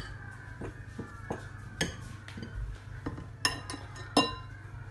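Kitchen utensils and dishes clinking: several sharp clinks, each ringing briefly, the loudest near the end.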